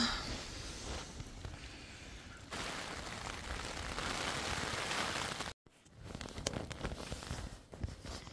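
Strong wind rushing and gusting, in a few short clips cut together; the middle stretch is a steady, even rush.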